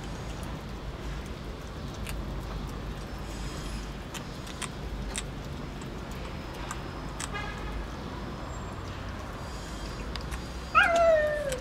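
Cats eating wet food from a tray, with faint scattered smacking clicks, then near the end one loud cat meow that falls in pitch.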